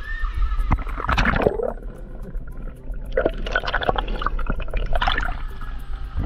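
Water gurgling and sloshing over a camera's microphone as it is dipped under the surface of a river pool, in two splashy bursts with a muffled, dull stretch between them.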